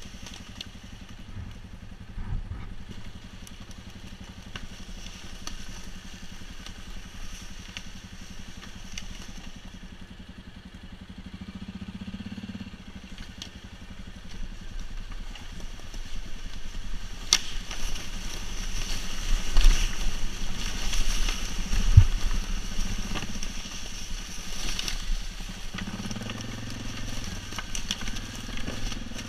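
ATV engine running at low revs while the quad rolls over dry leaf litter and twigs, the tyres crunching and the cargo box and rack rattling. Knocks come as it goes over bumps. The ride gets louder and rougher in the second half.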